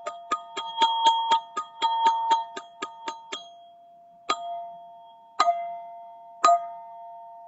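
Black ZenTube chime ringing in a quick run of strokes, about five a second, that stops about three seconds in. Then come three single strokes about a second apart, each left to ring out with two clear, steady tones.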